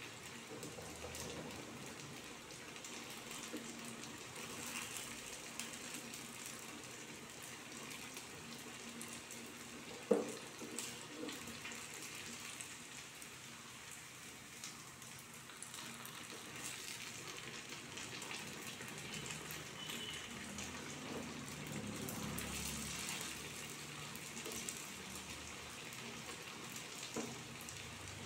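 Battered banana fritters deep-frying in hot oil, a steady crackling sizzle. One sharp clink about a third of the way in.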